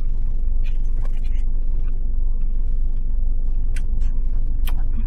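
Steady low rumble of a car cabin, with a few small sharp clicks and mouth smacks from eating about four and five seconds in.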